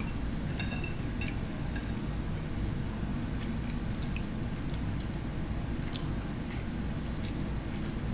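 A steady low hum of room noise, with a few light clinks of a metal fork against a ceramic plate as noodles are twirled and eaten.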